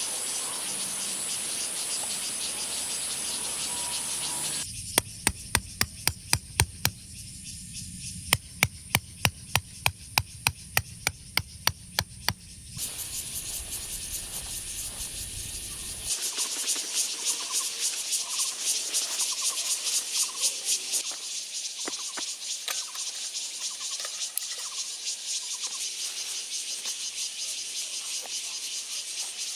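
Crickets and other night insects chirring steadily. About five seconds in come two runs of sharp, evenly spaced knocks, roughly two to three a second, lasting around eight seconds in all.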